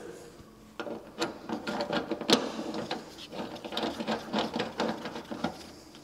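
Brass gas service valve being screwed on by hand at the boiler's gas connection: a quick, irregular run of small metallic clicks and rattles, the sharpest about two seconds in, dying away shortly before the end.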